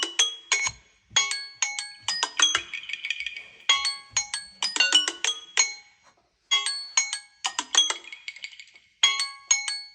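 Smartphone ringtone: a short melody of struck, ringing notes, played over and over, starting again about every two and a half seconds.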